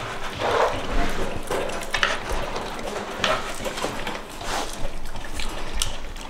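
American Bully puppy licking frozen peanut butter off a lick pad clipped to a wire crate, making irregular wet licks and smacks.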